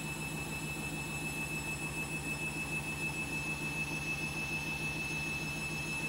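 Front-loading washing machine spinning a half load: a steady hum with a fast, even low pulsing rumble, and a thin steady high tone over it.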